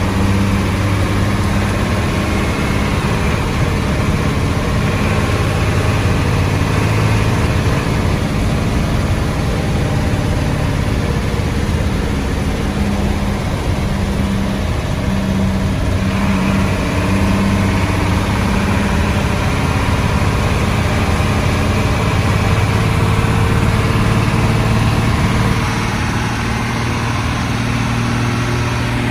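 Old Hino diesel bus engine running steadily, heard from inside the bus, with a deep, even hum; its note brightens a little past halfway and eases slightly near the end.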